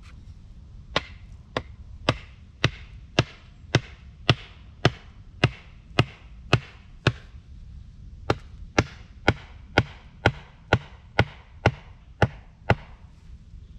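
A hand tool striking wood in a steady rhythm, about two blows a second, some twenty sharp strikes with a short break about seven seconds in.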